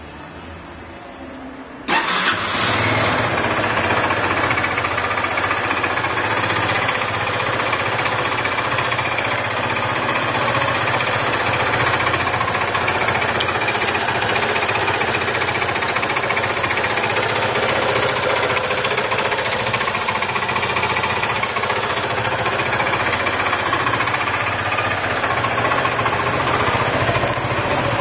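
Yamaha Fazer 250's single-cylinder engine catching about two seconds in and then idling steadily, with metallic knocking from inside the engine that the owner suspects is the piston knocking; the noise began shortly after an oil change.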